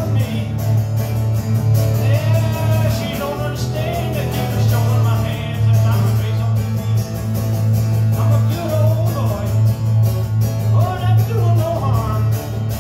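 A man singing live to his own strummed acoustic guitar, a steady country-rock strum under the voice.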